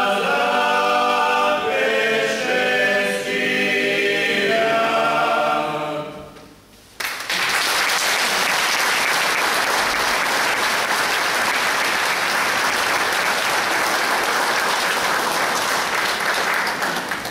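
Folk vocal ensemble singing a Lenten church song a cappella, the song ending about six seconds in. After a short pause, audience applause breaks out suddenly and goes on for about ten seconds, fading near the end.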